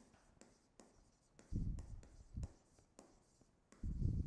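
Stylus writing on a tablet screen: a run of quick ticks and light scratches from the pen strokes, with a few dull low knocks, the loudest about one and a half and four seconds in.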